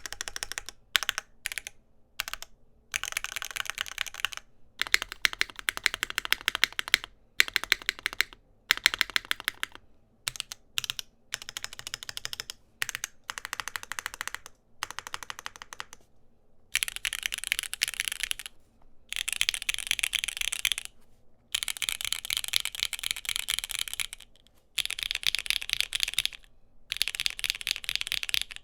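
Mechanical keyboard with Gateron Khonsu switches being typed on fast. The typing comes in runs of a few seconds broken by short pauses, and the runs in the second half are denser and brighter.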